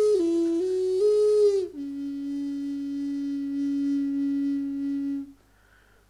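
Native American flute, a double-chambered wooden flute, playing slowly. A held note dips briefly and returns, then slides down to a lower note held for several seconds. The note breaks off shortly before the end.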